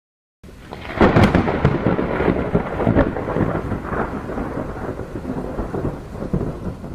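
Thunderclap sound effect: a sharp crack about a second in, then a long rumble with scattered crackles that slowly fades away.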